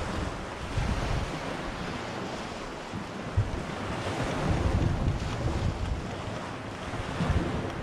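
Sea waves washing on a beach, with wind buffeting the microphone in uneven gusts.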